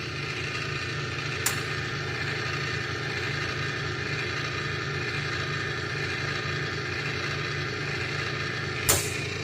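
Ilco 017 automatic key duplicator running through a cutting cycle, its motor humming steadily with a grinding, whirring whine. There is a sharp click about a second and a half in and another near the end.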